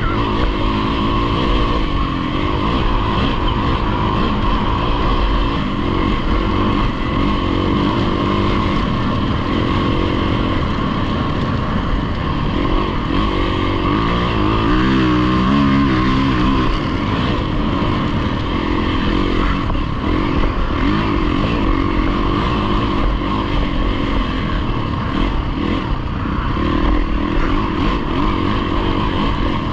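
Dirt bike engine running hard at race speed, heard from a camera on the bike, with noise rushing in underneath. About halfway through the revs dip and climb again.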